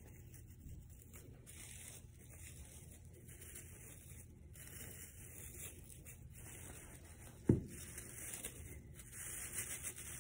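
Faint rustling and rubbing of artificial Yule tree branches being handled and fluffed. There is one brief low thud about seven and a half seconds in.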